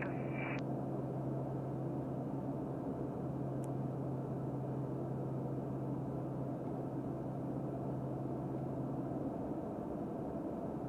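Steady drone of a Beechcraft King Air's twin turboprop engines and propellers heard inside the cockpit on final approach, with a strong low hum under a rushing noise. The propellers are set to maximum rpm.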